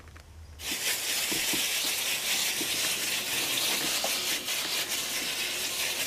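Garden hose spray nozzle spraying water onto the leaves of a potted basil plant, a steady hiss that starts under a second in.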